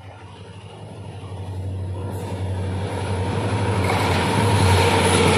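Approaching diesel locomotive hauling an express train, its steady engine drone and the train's rumble growing louder as it nears.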